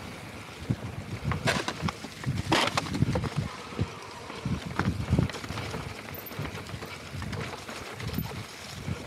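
Mountain bike riding downhill over a rocky dirt trail: tyres rolling over stones and roots, the bike rattling and knocking, with wind buffeting the microphone. Two sharp clacks stand out about one and a half and two and a half seconds in.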